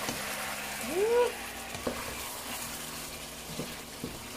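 Chicken pieces sizzling as they fry in their own juices in a pot, stirred with a wooden spatula. A short rising-then-falling note sounds about a second in.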